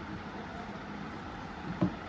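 A person eating rice and meat by hand, chewing with a short, soft, low mouth sound near the end, over steady background noise.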